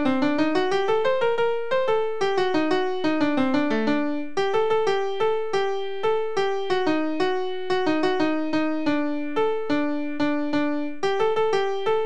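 A song melody played note by note on a piano sound at a fast tempo, with no singing: playback that follows the written score of the tune.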